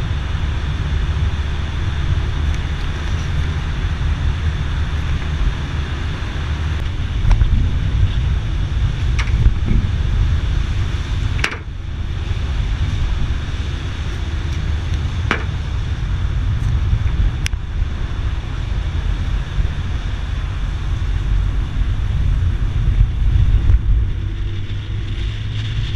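Car driving, heard from inside the cabin: a steady low road and engine rumble, with a few short sharp clicks.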